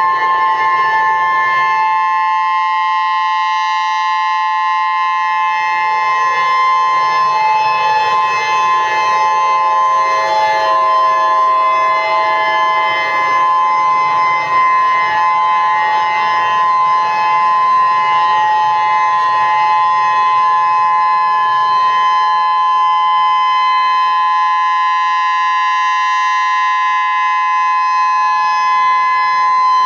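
Chilean emergency alert signal: a loud, harsh chord of several steady held tones that sounds without a break.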